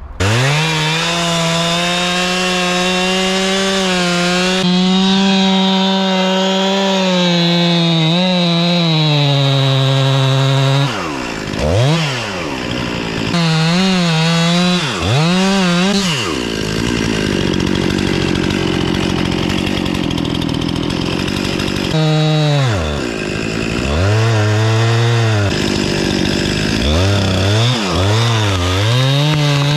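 Two-stroke chainsaw at full throttle, boring into and back-cutting an alder trunk. Its pitch drops and climbs again several times as the throttle is let off and opened up.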